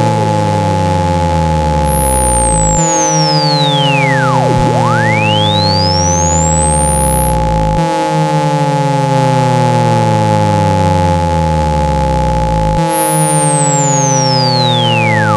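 Synthetic speaker-cleaning tones meant to vibrate water out of a phone speaker. Two steady pitches hold throughout. A pure tone sweeps down from very high to very low about four seconds in and climbs back up, then starts down again near the end, over a bed of falling low tones that restarts about every five seconds.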